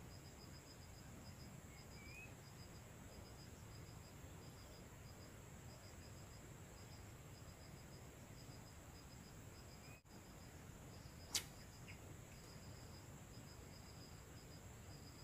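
Faint insects chirping in short repeated groups of high pulses over a steady high-pitched hum, in an otherwise near-silent marsh. A single sharp click about eleven seconds in.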